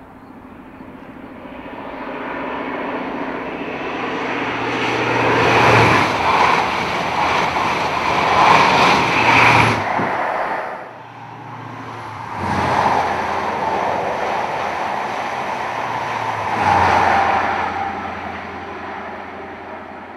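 InterCity 125 High Speed Trains with Class 43 power cars passing at speed. The engine and wheel noise builds for several seconds, stays loud and cuts off abruptly about ten seconds in. A second passage rises about two seconds later, is loudest twice and then fades away.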